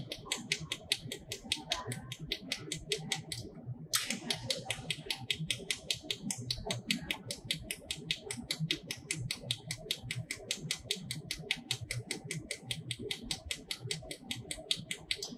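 80 W pulsed jewelry laser welder firing a steady train of sharp clicks at about five pulses a second, each pulse laying a spot weld. The firing breaks off for under a second about three seconds in, then resumes.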